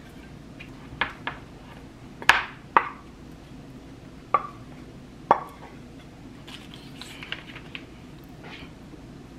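A spatula knocking and scraping against a frying pan as scrambled eggs are served out: about six sharp clacks in the first five seconds or so, the loudest about two seconds in. Softer rustling and light clicks follow near the end.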